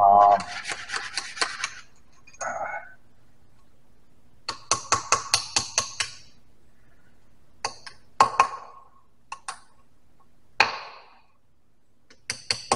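Socket ratchet clicking in short runs, about five clicks a second, as the torqued bolts on a tractor clutch assembly are backed off, with metal clinks of tools and parts and one louder clank near the end.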